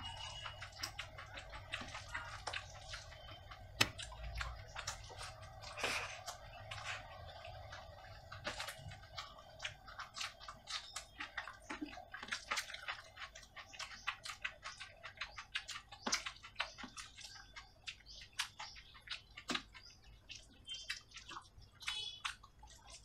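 Eating with the hands: wet chewing and mouth clicks, with fingers squishing curry-soaked rice, as a stream of short clicks and smacks. A sharper knock stands out about four seconds in.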